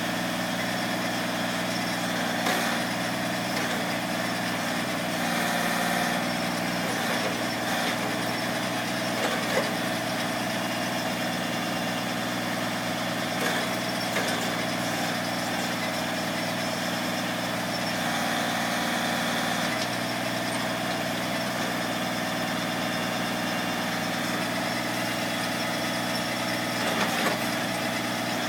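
Backhoe engine running steadily at a low, even speed, with a few short knocks or clanks scattered through.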